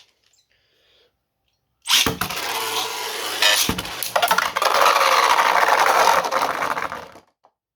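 Two 3D-printed Beyblade tops, Brake Shield and Ignis, are launched with a sudden sharp start about two seconds in. They then spin and clatter against each other in the plastic stadium with dense rapid rattling. The sound stops abruptly a little after seven seconds as the round ends in a pocket finish.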